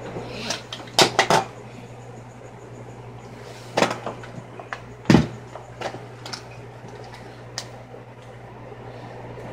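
Sharp clicks and knocks of small plastic makeup containers being handled, closed and set down. There is a quick cluster of clicks about a second in and two louder knocks around four and five seconds, all over a steady low hum.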